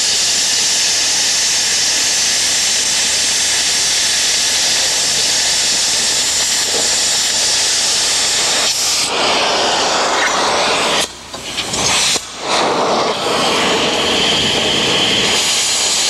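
Oxy-fuel cutting torch cutting steel: a steady, loud hissing rush of gas and burning metal. It drops away briefly twice about two thirds of the way through.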